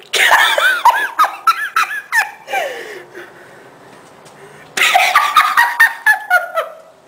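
A person laughing hard and high-pitched close to the microphone, in two bouts with a pause of about two seconds between them.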